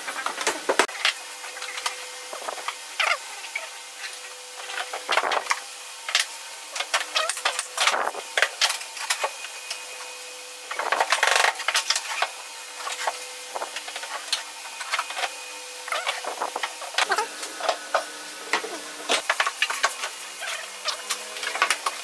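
Slatted wooden rack pieces being handled, giving irregular light wooden clicks and knocks with scratchy rubbing in between.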